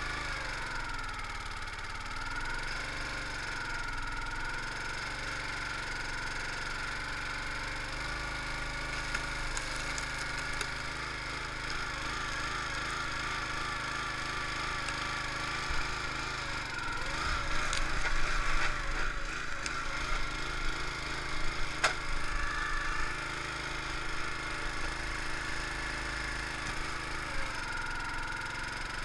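Gas-powered 25-ton hydraulic log splitter with its small engine running steadily, its pitch sagging and wavering as the ram takes the load. Past the middle, an oak round creaks and cracks apart under the wedge, with one sharp snap.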